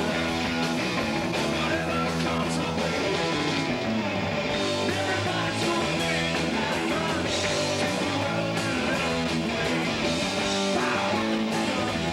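Live rock band playing: electric guitars and drums, a continuous full-band passage at an even level.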